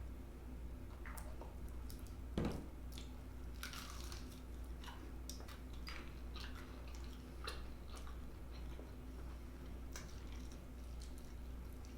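Close-miked eating of fried chicken: bites and chewing with scattered crisp, wet crackles and clicks, and one louder bite about two and a half seconds in. A steady low hum runs underneath.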